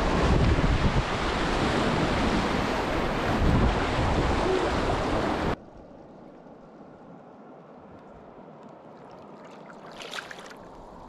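Rushing whitewater, loud and even. About five and a half seconds in it drops off abruptly to a much quieter flow of water, with a brief louder noise near the end.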